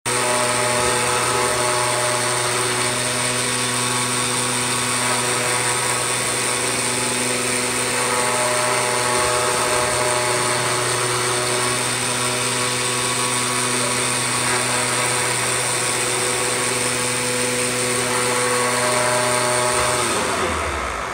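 CNC flatbed cutter running, its oscillating knife tool cutting foam sheet: a loud, steady machine hum with a high whine over a hiss, falling away near the end.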